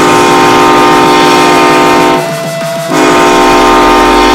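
Ice hockey arena goal horn blowing a loud, steady chord in two long blasts, broken by a short gap a little over two seconds in.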